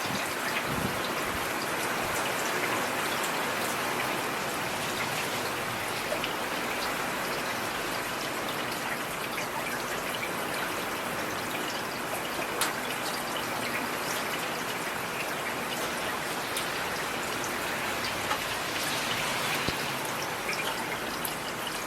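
Steady rain falling on a street, with individual drops ticking now and then.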